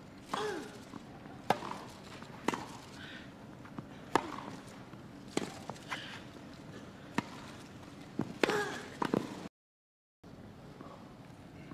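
Tennis rally on a grass court: a tennis ball struck by rackets with sharp pops about once a second. The strokes come faster in a cluster near the end, just before the sound cuts out abruptly at an edit.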